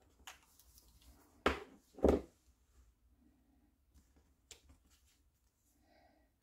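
Two sharp knocks about half a second apart, a second and a half in, as craft things are set down on the table, then faint handling of paper and card as a patterned paper mat is laid onto a glued card layer and pressed down, with a small click about halfway through.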